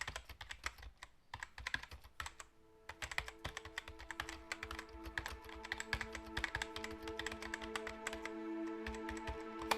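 Rapid, irregular computer-keyboard typing clicks, with soft sustained music coming in about two and a half seconds in and swelling underneath.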